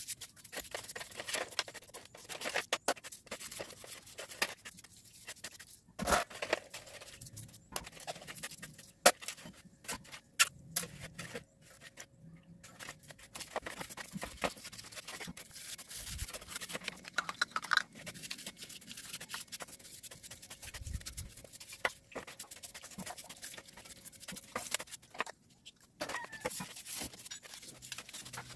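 A brush scrubbing oily Mazda 3 starter motor parts in a metal tray of cleaning liquid: irregular scraping and rubbing, with scattered sharp clicks of metal parts knocking against the tray.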